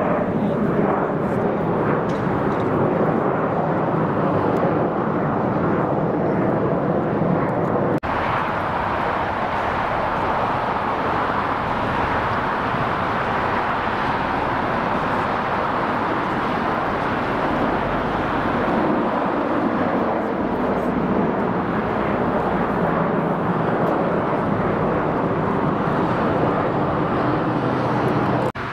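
Alaska Airlines Embraer 175 regional jet climbing out after takeoff, its twin GE CF34 turbofans making a steady jet roar. The sound shifts abruptly about eight seconds in.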